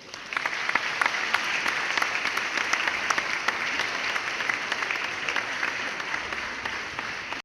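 Applause from a crowd, dense and steady, cutting off suddenly at the end.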